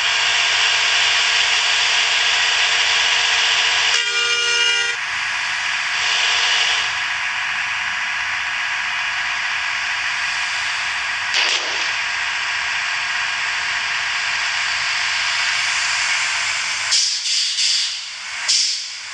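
A bus's multi-tone 'telolet' air horn sounds briefly about four seconds in, with a fainter toot a couple of seconds later, over a loud, steady hiss.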